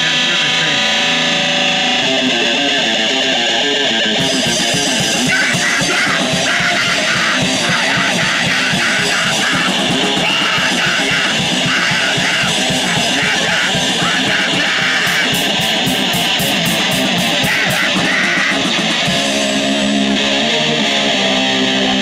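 A live crust punk band playing fast and loud: electric guitar, bass and drums together.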